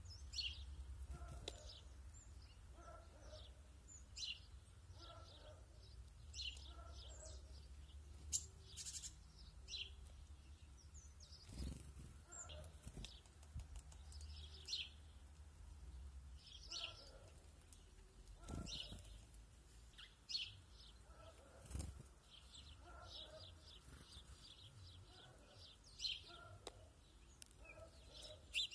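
Small garden songbirds, tits and sparrows, chirping: short high calls in quick little clusters about once a second, over a low steady rumble. A few soft thumps come about 12, 19 and 22 seconds in.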